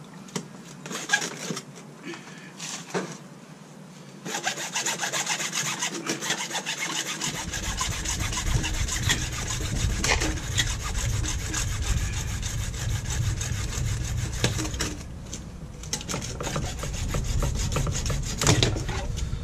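Hand saw cutting through PVC pipe with quick back-and-forth strokes, starting about four seconds in after a few scattered knocks, with a brief pause near the end.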